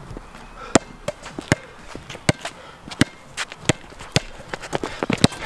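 A basketball bouncing on a hard court during play. It gives a string of sharp, irregular thuds, about two or three a second, mixed with the players' footsteps.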